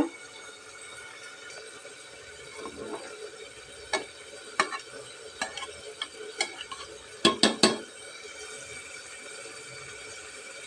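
A spoon stirring cooked pea rice in a pressure cooker pot, with scattered clinks and scrapes against the metal and three louder knocks in quick succession about seven seconds in.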